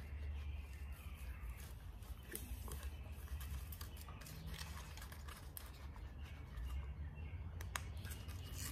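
Faint rustling and small clicks of a rubber half-face respirator and its elastic straps being handled and pulled on, over a steady low rumble.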